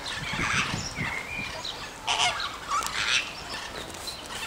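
A flock of flamingos honking, a run of harsh calls overlapping one another, the loudest about two and three seconds in.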